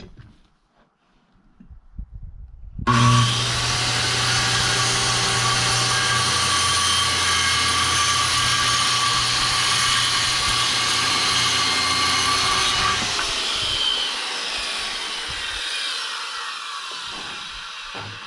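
An electric power saw starts suddenly about three seconds in and runs loud and steady for about ten seconds. It is then switched off, and the blade winds down with a falling whine that fades over the last few seconds.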